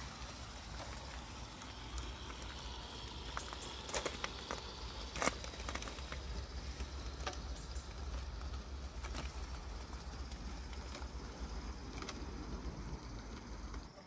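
Garden-scale model train running along its track: light clicking and rattling from the wheels and coaches, with a few sharper clicks about 4 and 5 seconds in, over a steady low rumble.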